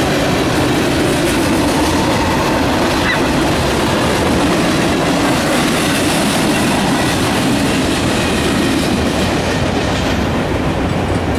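Freight train boxcars rolling past, with a steady rumble and the clickety-clack of steel wheels over the rail joints. The sound begins to fall away near the end as the last car clears.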